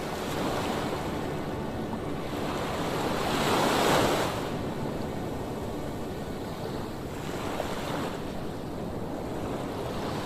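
Sea waves breaking on a rocky shore: a wave builds and crashes about four seconds in, then washes back, and a smaller wave breaks near the end.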